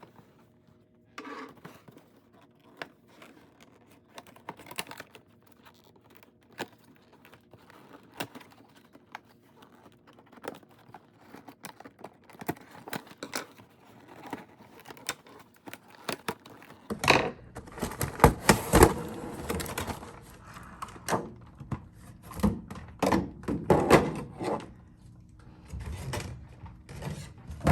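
Doll packaging being opened by hand: scattered light clicks and taps of cardboard and plastic, which turn into louder crinkling and rustling of plastic with sharp clicks about seventeen seconds in.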